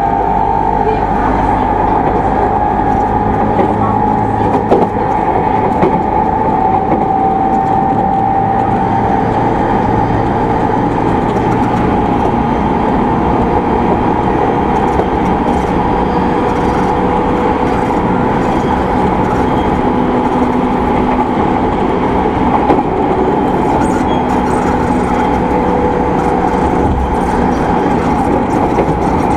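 Running noise inside the E217 series (equipment-renewed) motor car MoHa E216-2020 at speed: a steady rumble of wheels on track, with a whine from the traction motors and gears holding a near-constant pitch, and a few faint knocks.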